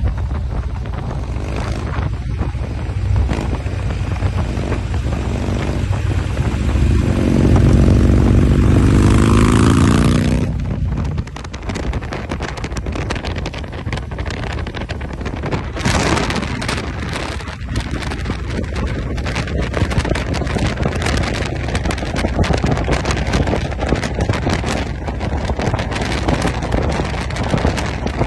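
Harley-Davidson Road Glide CVO's V-twin engine running under way, with heavy wind buffeting the microphone. About seven seconds in, the engine revs up and rises in pitch, then backs off sharply about three seconds later and settles back into a steady rumble under the wind.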